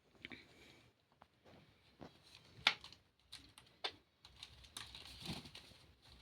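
Irregular light clicks, taps and short rustles, with the sharpest click about two and a half seconds in.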